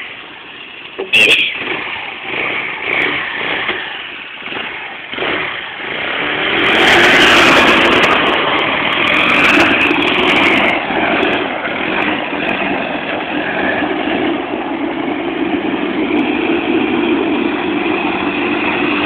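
ATV engine turning over in uneven pulses, with a sharp click about a second in. It catches about six seconds in and then runs steadily.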